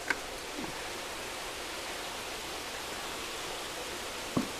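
Steady splashing of water falling in thin streams from the pipes of a recirculating fish-tank system into the vats below. A short click comes just after the start and a brief knock near the end.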